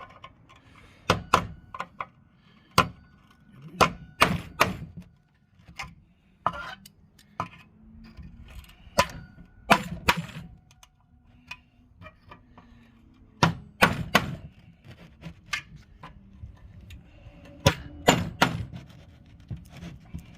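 Hammer striking a screwdriver bit set in a holder to shock loose seized screws in a wood heater's door frame: sharp metal blows at irregular intervals, often two or three in quick succession, with light clatter between.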